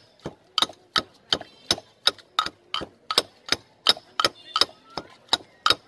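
Pestle pounding green banana mash in a stone mortar, a steady run of sharp strikes about three a second, each with a short ringing clink.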